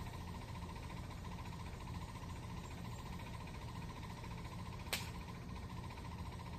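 Steady background noise: a low rumble with a fast, even pulsing buzz at mid pitch, broken once by a single sharp click about five seconds in.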